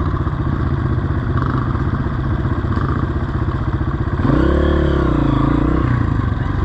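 Honda CRF230F's single-cylinder four-stroke engine running at low speed on the trail, then revving up and easing back down about four seconds in.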